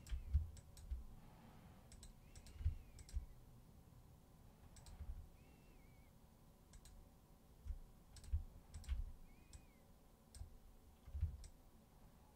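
Faint, irregular clicks of a computer mouse and keyboard, about a dozen, some with a soft low knock on the desk.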